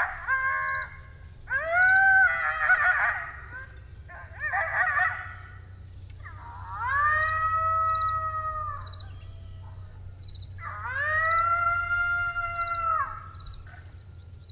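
Coyote howling: a burst of yips and chattering calls, then two long howls that each rise, hold steady and fall away.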